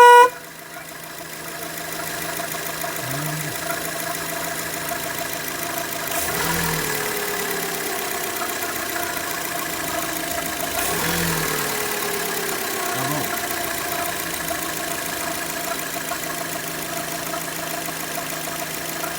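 Fiat Mobi engine running with a steady high whine over the idle, a noise that appeared after the timing belt and tensioner were replaced. The engine note swells twice, about six and eleven seconds in, each time sliding back down in pitch over a few seconds. A short loud beep sounds right at the start.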